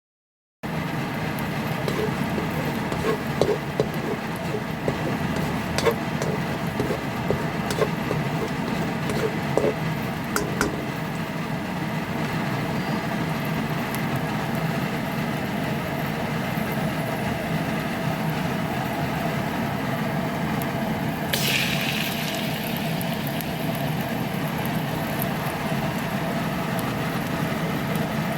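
A steady low mechanical hum, with light clicks and knocks over the first ten seconds or so and a brief hiss about twenty-one seconds in.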